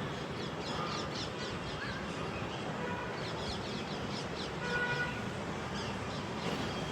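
Birds chirping in quick runs of short falling notes, twice, over a steady background noise.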